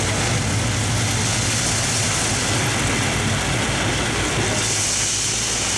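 Heavy diesel plant engines running steadily with a low hum, and a high hiss that grows stronger near the end.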